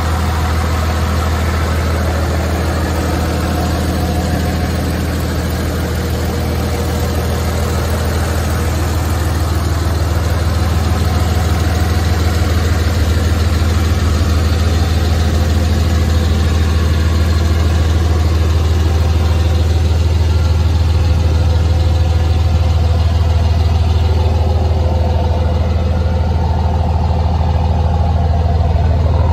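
2005 Ram 3500 pickup's engine idling steadily, heard from beneath the truck.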